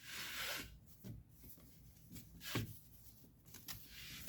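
Seat belt webbing pulled through with a brief rubbing swish, followed by a few soft knocks of the belt hardware being handled.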